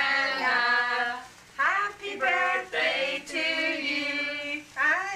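A woman singing to a toddler in long drawn-out notes, with a short pause about a second in.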